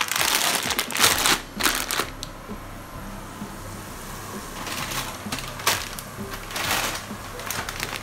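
A plastic bag of peanuts crinkling as it is handled, then the crackle of sliced garlic frying in oil in a wok, coming in uneven bursts with a few sharp clicks near the end.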